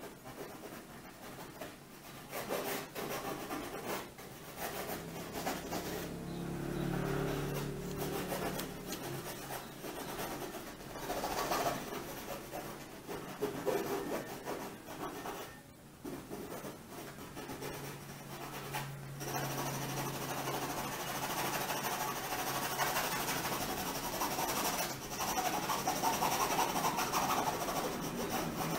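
A drawing stick scratching and rubbing across a large board in quick sketching and hatching strokes.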